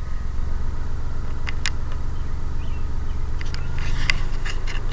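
The freshly rebuilt 1.0-litre three-cylinder engine of a 1992 Geo Metro idling steadily just after starting, a low, evenly pulsing rumble. A few light clicks sound over it.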